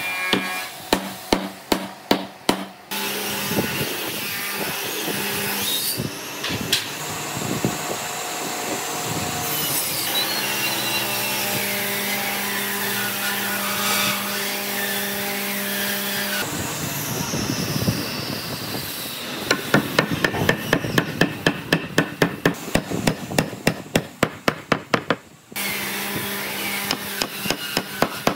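Hammer blows on hardwood joints, the frame's parts being driven together: a quick run of strikes at the start, then a steady mechanical hum for about thirteen seconds, then a long, fast run of strikes at about three a second.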